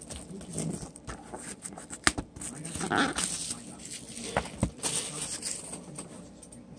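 A cardboard trading-card hobby box being handled and opened: irregular rustles, scrapes and small clicks.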